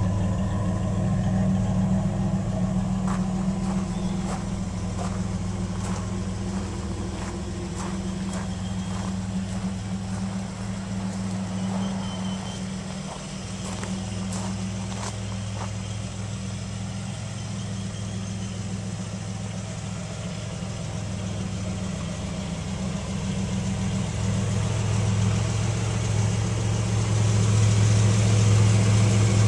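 1989 Pontiac Turbo Trans Am's turbocharged 3.8-litre V6 idling steadily through the stock exhaust with the catalytic converter removed. The idle hum dips a little in the middle and grows louder again near the end.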